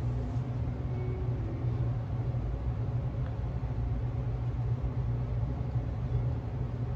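Steady low mechanical hum over a faint hiss.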